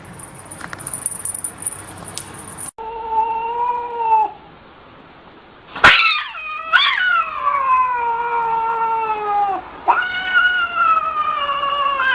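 Cat yowling: a short meow, then after a pause long drawn-out yowls that start high and slide down in pitch, one after another.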